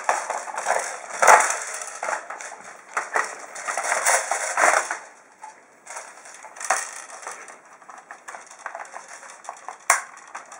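Spring airsoft AK-47 replica being handled and reloaded: irregular plastic clicks, scrapes and rattles, with a few sharp clicks among them.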